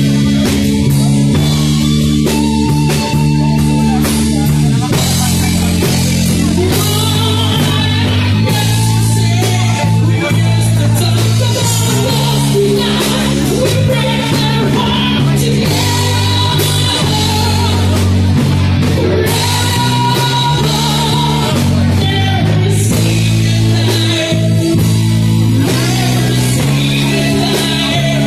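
Live rock band playing a song, with a singer over guitar, bass and drum kit.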